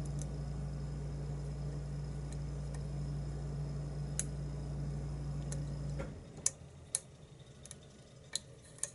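Faint, sparse clicks of a lock pick working the pins of a challenge lock, over a steady low hum that cuts off about six seconds in.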